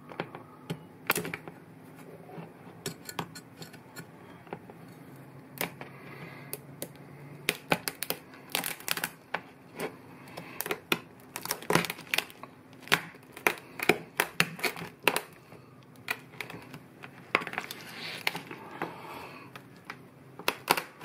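Shell of a Balmain bug (slipper lobster) cracking and crunching as a cleaver splits it and fingers work the halves apart on a wooden board: a long run of sharp clicks and cracks, thickest in the middle.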